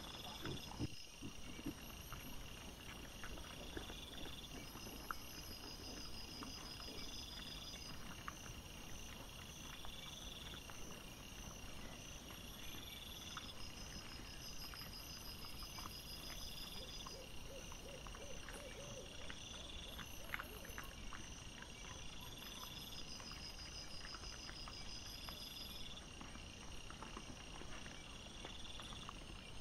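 Night insects chirping in a steady, regularly repeating rhythm, with scattered small clicks and crunches from wild boar rooting and feeding close by; a brief pulsing call is heard about two thirds of the way through.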